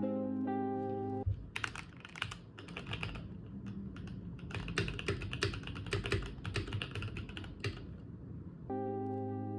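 Keychron K8 mechanical keyboard being typed on quickly, a dense run of key clicks. Lofi background music plays briefly at the start and comes back near the end.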